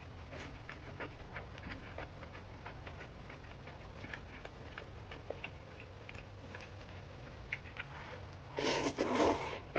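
Close-up mouth sounds of a person eating: faint, scattered soft chewing clicks, then a louder noisy burst lasting about a second near the end.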